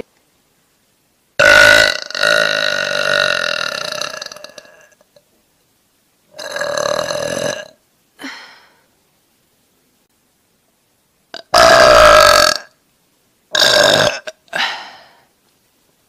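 A woman belching loudly several times. The first burp, about a second in, is long and drawn out and trails off; the others are shorter, with silent gaps between them.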